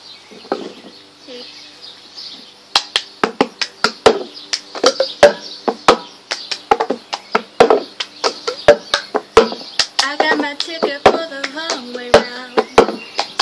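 Hands clapping and a cup being tapped, slapped and set down in the rhythm of the cup game, starting about three seconds in as a steady run of sharp claps and knocks.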